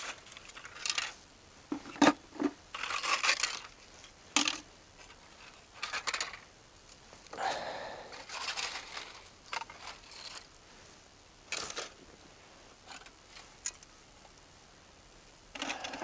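Small rusty metal fragments being gathered by hand from the ground and dropped into a bucket: irregular clinks and rattles, with short stretches of scraping through leaf litter and dirt between them.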